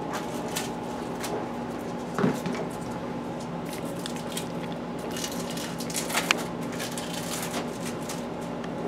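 Plastic wrappers of individually wrapped American cheese slices crinkling as they are peeled off, in short irregular rustles and clicks over a steady low hum.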